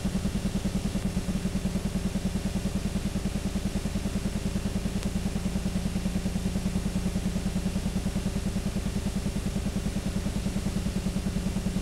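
Film projector running: a steady mechanical clatter with a rapid, even pulse over a low hum.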